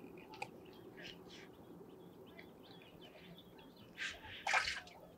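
Small birds chirping, many short calls in quick succession. About four seconds in there is a brief, louder burst of noise.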